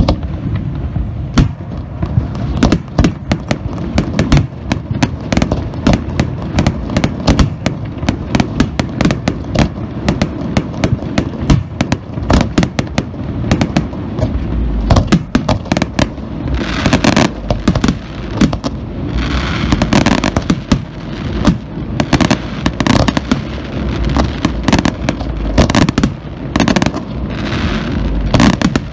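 Aerial fireworks display: shells bursting in rapid succession with booms over a continuous low rumble. In the second half there are several stretches of crackling.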